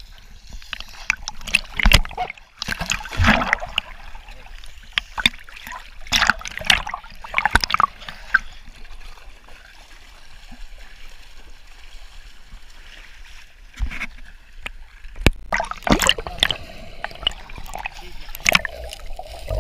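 Dogs swimming and wading through shallow sea water, with irregular splashing and sloshing that calms for a few seconds in the middle.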